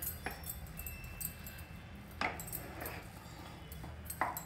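Wooden spatula stirring and fluffing cooked brown rice upma in a stainless steel pressure cooker, with two soft knocks against the pot, one about two seconds in and one near the end, over a low steady hum.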